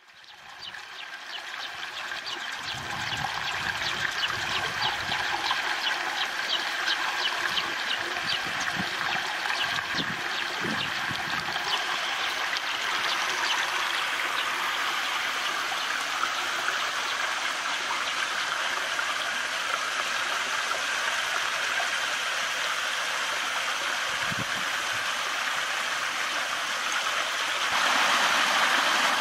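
Shallow stream trickling and burbling over rocks, a steady rush of running water. It fades in over the first couple of seconds and becomes louder near the end.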